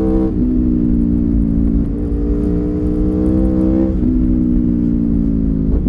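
Stock 2019 Aprilia Tuono V4 1100 Factory's V4 engine pulling hard under acceleration, heard from the rider's seat. The engine pitch climbs, then drops sharply at each of about four quick upshifts, one roughly every two seconds.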